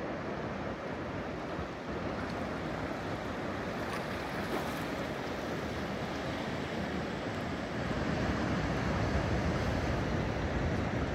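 Ocean surf washing onto a beach, with wind on the microphone. It is a steady rushing noise that gets louder and deeper about eight seconds in.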